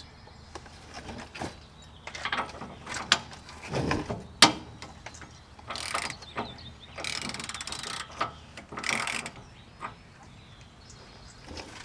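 A large 1-5/16-inch steel socket clinking onto the Pitman arm nut, with a long-handled ratchet clicking in short runs as it is set on the nut.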